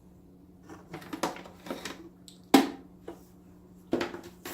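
Hard plastic parts of a canister filter being handled and set down: a series of knocks and clatters, the sharpest about two and a half seconds in.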